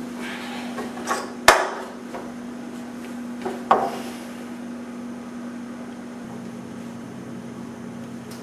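Knocks of a chair and table as a person sits down at the table: a sharp knock about a second and a half in, the loudest, and another near four seconds, over a steady low hum.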